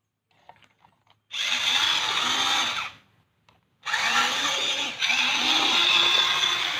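A motor-driven machine or power tool whirring at high speed in two spells: it runs for about a second and a half, stops, then starts again about a second later and keeps running.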